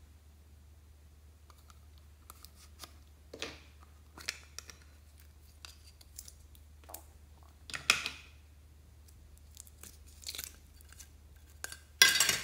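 Hands working a plastic lollipop-shaped toy slime container: scattered clicks and scrapes of hard plastic as the lid is worked open, with a louder handling noise about two-thirds of the way in. Near the end a short, loud squelching burst as the green glitter slime is pulled out of the container.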